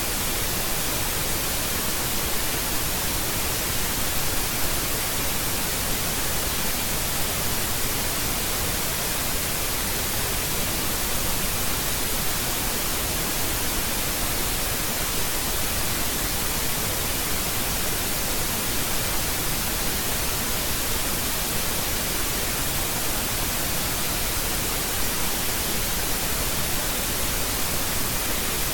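Steady, unbroken hiss of static, heavier in the high range, with a faint thin high tone running through it.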